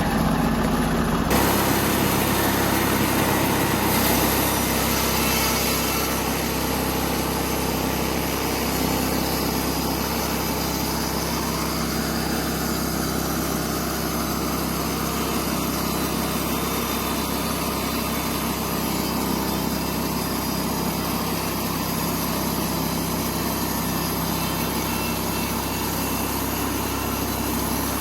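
Engine-driven Norwood portable bandsaw mill running steadily, its band blade sawing a slab off an oak log.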